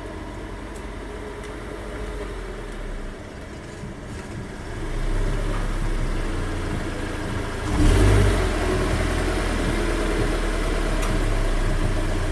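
Subaru BRZ's flat-four boxer engine running at low speed as the car is pulled forward. It gets louder about five seconds in, with a brief surge of throttle near eight seconds.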